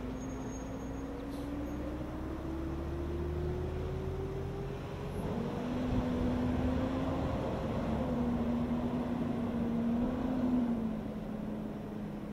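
Diesel engine of a fire department EMS support truck pulling away and accelerating. Its engine note rises steadily over the first several seconds, then holds with a few steps in pitch, over a low road rumble.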